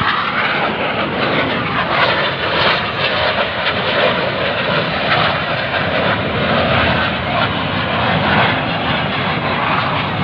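Military jet flying overhead: steady, loud jet engine noise.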